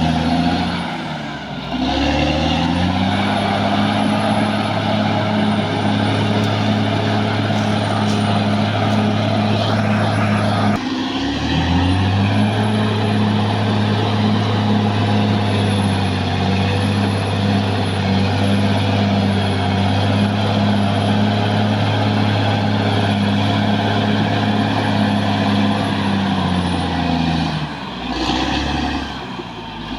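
Caterpillar D6R XL bulldozer's diesel engine running steadily under work. Its pitch sags and climbs back about two seconds in, again around eleven seconds in, and in a longer dip near the end.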